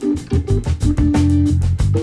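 Background music: guitar and bass notes over a steady beat.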